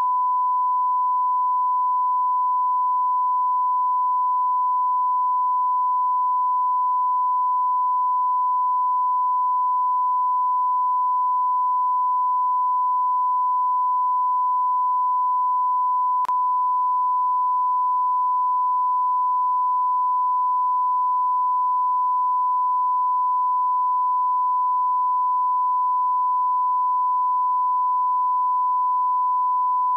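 Steady 1 kHz sine-wave test tone: a continuous pure beep held at one pitch and one level, the line-up tone that accompanies a television test card.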